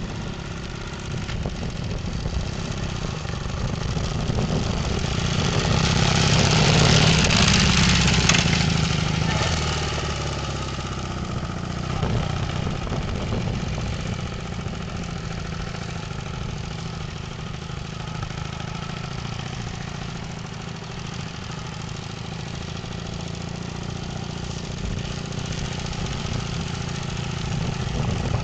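Motorcycle engine running as it is ridden in low gears. It grows louder as it comes close, about a quarter of the way in, then drops back to a steady, quieter running sound.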